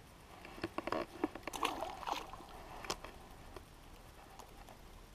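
Water splashing and sloshing close by, a cluster of short splashes and clicks over the first three seconds, then quiet river background.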